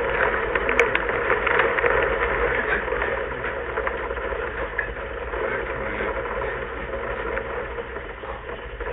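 Heavy rain pouring down steadily, a dense hiss of falling drops with a fine crackle in it.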